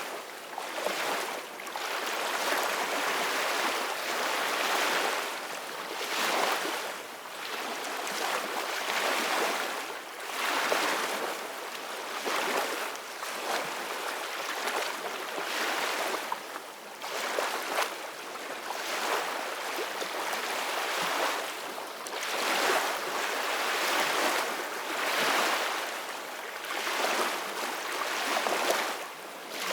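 Soft ocean waves washing ashore: a steady hiss of surf that swells and eases every few seconds, with little deep rumble.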